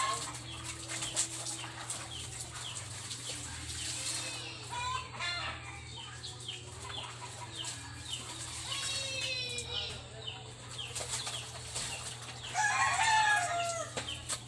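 Roosters crowing several times, the longest and loudest crow near the end, with splashing and wringing of clothes being washed by hand in a plastic basin.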